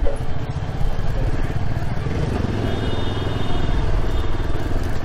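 Motorcycle engine running with a steady, low, pulsing rumble as the bike creeps through slow traffic, heard from the rider's seat.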